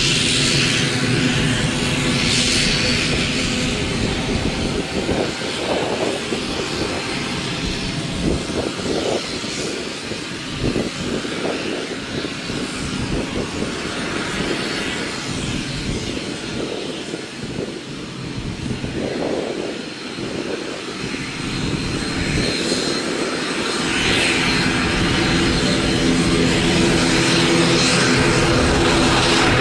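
ATR 72-500 turboprop's two Pratt & Whitney PW127 engines running at taxi power: a steady propeller drone with a high turbine whine. It dips in the middle and grows louder in the last few seconds as the aircraft turns onto the runway.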